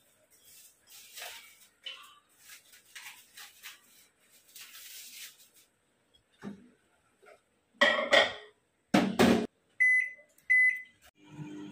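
Cling film rustling as it is peeled off a plate, two loud knocks as the plate goes into a Midea microwave oven and the door shuts, two short beeps as its buttons are pressed, then the microwave starts running with a steady hum near the end.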